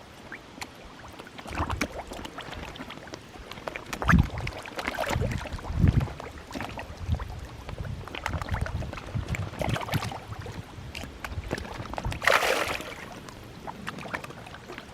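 Many koi splashing at the water surface as they feed, a steady patter of irregular splashes with a few bigger ones, the largest about twelve seconds in.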